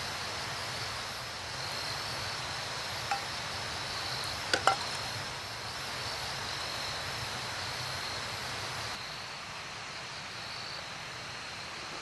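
Forest ambience at night: a steady high insect trill with a low hum beneath, and a few sharp clicks about halfway through.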